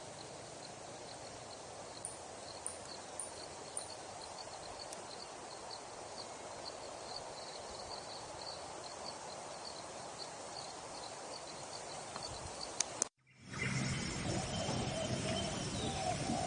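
Outdoor nature ambience: a steady hiss with a small high chirp repeating about three times a second, from a bird or insect, and a few sharp high chirps. About thirteen seconds in it cuts abruptly to a louder outdoor scene with several birds calling.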